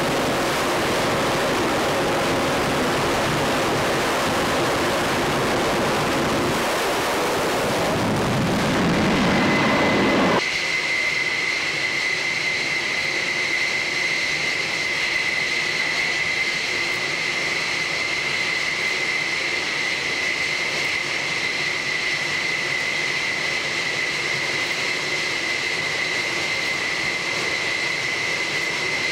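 Jet engines of an F-14A Tomcat, Pratt & Whitney TF30 turbofans, running on a carrier catapult. A loud rushing roar swells and then cuts off abruptly about ten seconds in, leaving a steady high-pitched whine.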